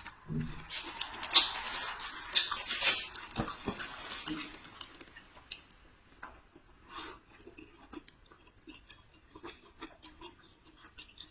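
Close-up eating sounds: a few seconds of crackling, rustling food handling and clicks against dishes, then quieter chewing with scattered small clicks.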